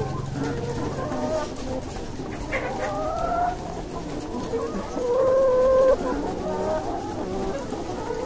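Brown laying hens in wire battery cages clucking and calling, with a series of short calls and a louder drawn-out call about five seconds in.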